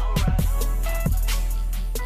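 Hip hop background music: a deep bass line under a steady drum beat.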